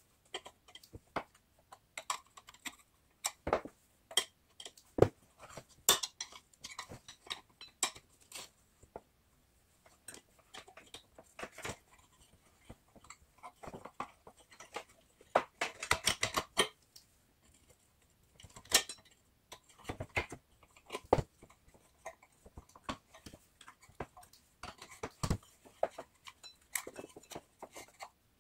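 Irregular clicks, taps and light metallic clatter of a snowblower's recoil starter being handled while a new starter rope is fitted, with a denser burst of rattling about sixteen seconds in.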